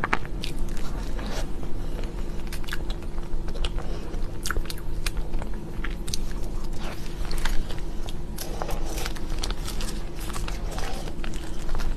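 A person biting and chewing chocolate cake close to the microphone, with many small sharp clicks and crackles as the mouthfuls are chewed.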